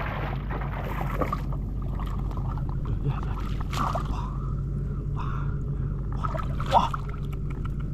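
Water and mud sloshing and splashing in short bursts as hands work through shallow water, over a steady low motor hum.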